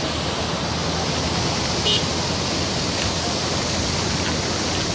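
Steady rushing of fast-flowing muddy floodwater surging past a bridge. A brief sharp click sounds about two seconds in.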